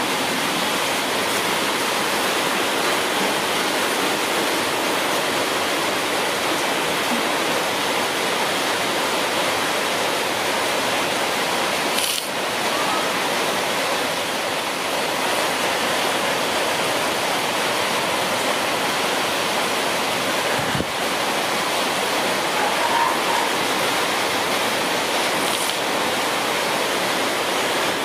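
A steady, even rushing hiss that covers everything, with two very short dips about twelve and twenty-one seconds in.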